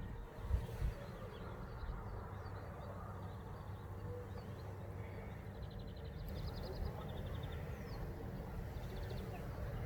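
Faint outdoor ambience with a steady low rumble, over which small birds give several short, rapid high trills from about six seconds in.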